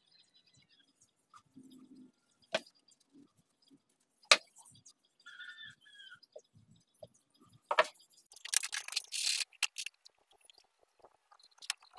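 Wooden parts of a shop-made push block being handled and knocked against a wooden bench vise: a few sharp knocks, the loudest about four seconds in, and a short high squeak around five seconds. Near the end comes a burst of quick scraping and rattling.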